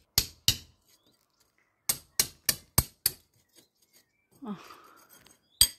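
Sharp knocks in a quick run of five, about three a second, and one more near the end.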